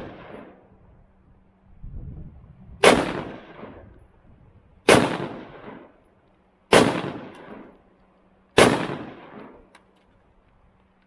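Four gunshots from a 5.56 pistol with a 10.5-inch barrel and a Troy Claymore flash suppressor, fired about two seconds apart, each echoing away over about a second. The echo of a shot fired just before is still fading at the start.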